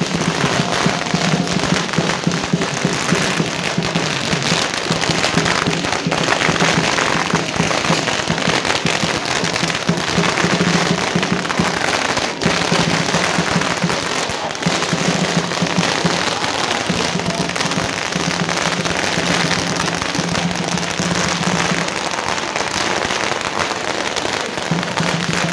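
A long string of firecrackers going off in a dense, continuous crackle that does not let up, with a low steady hum that comes and goes underneath.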